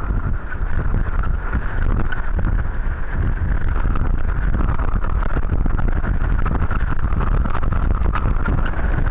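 Typhoon wind blowing hard and buffeting the microphone, with a heavy low rumble and a steady higher-pitched howl running through it.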